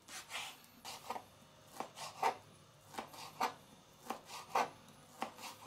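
Kitchen knife slicing cold boiled beef into strips on a plastic cutting board: a series of short cuts, roughly two a second.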